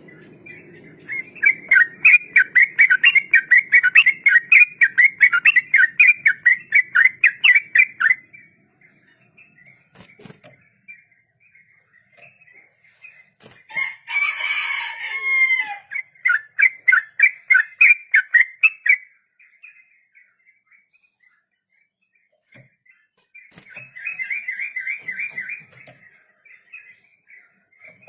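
Yellow-vented bulbul (trucuk) singing its 'ropel' song, long runs of quick repeated high notes. It comes in three bouts with pauses between: a long one first, a second that opens with a brief jumbled phrase, and a short one near the end.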